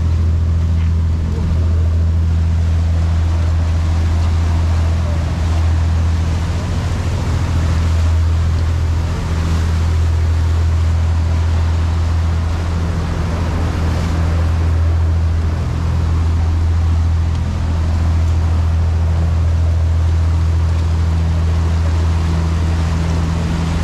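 Sportfishing boat's engine running steadily under way, a constant low drone with wind and water rush over it.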